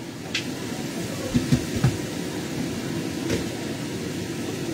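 Kitchen cooking noise: a steady low rumble with a few sharp clanks of cookware at the stove, three of them in quick succession about a second and a half in.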